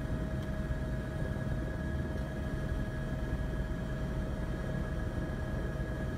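Steady low rumble of a helicopter's engine and rotor heard from inside the aircraft, with two steady high tones over it.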